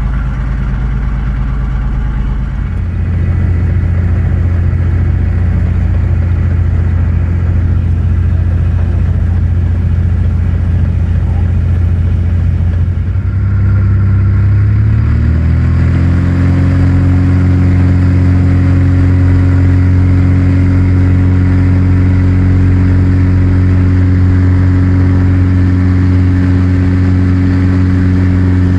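Light aircraft's piston engine and propeller heard from inside the cockpit, running steadily. About halfway through, the pitch rises and then holds higher as power is opened up for the take-off roll down the runway.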